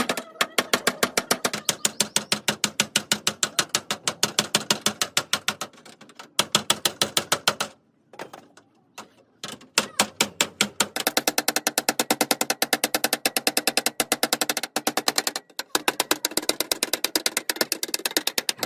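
Rhythmic music with fast, even percussive clicks, about eight strokes a second, over sustained pitched tones. It breaks off into a short near-silent gap about eight seconds in, then resumes.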